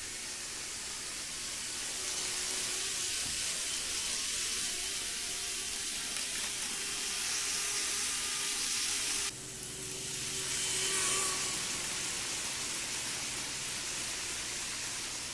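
Kato 500 Series Shinkansen N-scale model train running on its track: a steady, hissing running noise that the owner finds too loud. It drops and shifts abruptly about nine seconds in.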